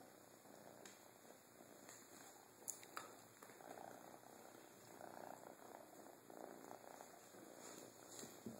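A kitten purring faintly, in soft swells about once a second. Two light clicks about three seconds in.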